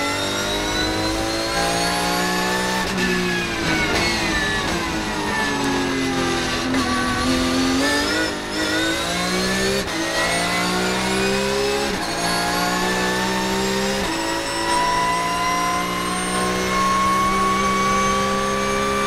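Porsche 991.1 Cup car's 3.8-litre flat-six at racing pace, heard inside the cockpit. The revs climb, sink for several seconds as the car slows for a corner, then climb again with quick sequential-gearbox upshifts about ten, twelve and fourteen seconds in, and keep rising near the end.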